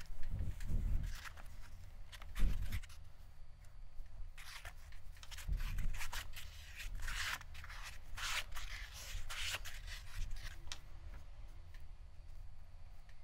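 A sponge rubbing and wiping over the surface of an air-dry terra cotta clay pot to smooth it, in irregular strokes, with a few dull knocks from handling the pot in the first half.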